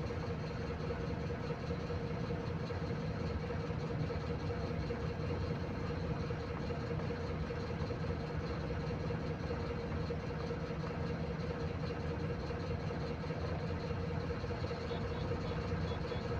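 Mining dump truck's diesel engine running steadily as it drives along a haul road, heard from inside the cab: an even, unchanging drone.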